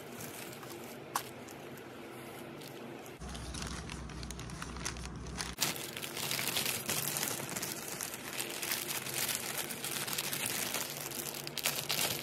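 Clear plastic bag crinkling as hands handle it and slide a canvas pouch inside; faint at first, growing louder about three seconds in.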